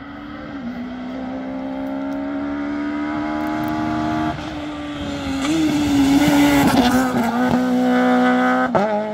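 Peugeot 208 rally car accelerating hard toward and past the spectator: its engine note climbs steadily, drops sharply at a gear change about four seconds in, and swells into a loud pass-by with tyre noise around six to seven seconds, with more gear changes near the end.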